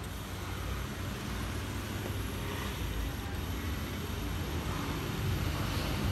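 IAI RCP2-RA6C rod-type electric actuator, a stepper-motor ROBO Cylinder, running under pendant control: a steady low hum with a faint, thin high whine over it.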